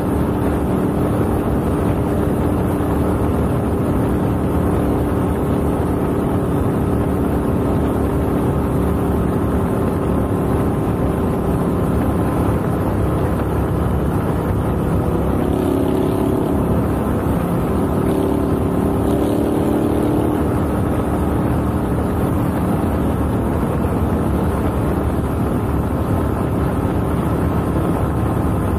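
Motorcycle engine running steadily at highway cruising speed, with wind rushing over the bike-mounted microphone.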